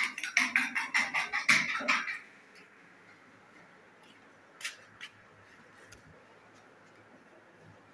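A fast, even rattling clatter, about six strokes a second, for roughly two seconds, then a quiet room. Near the middle come two short clicks as a refrigerator door is pulled open.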